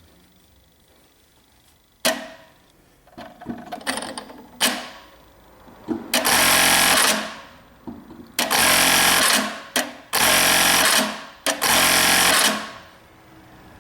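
Brother KE-430F electronic bartacking sewing machine running four short stitching cycles of about a second each, each one a burst of rapid needle strokes. Before them come a few separate clicks and knocks.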